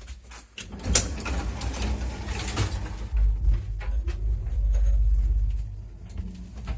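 Soviet 1979 MLZ passenger lift working, with a sharp knock about a second in and clatter from its doors and mechanism. A low rumble swells to its loudest about five seconds in, then fades.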